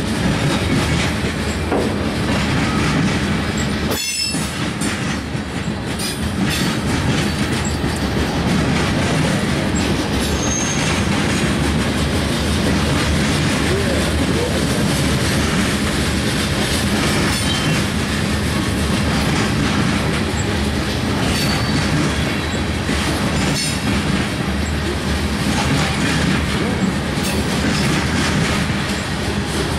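Covered hopper cars of a freight train rolling past: a steady rumble of steel wheels on the rails with rhythmic clatter over the rail joints, and a couple of brief high-pitched wheel squeals.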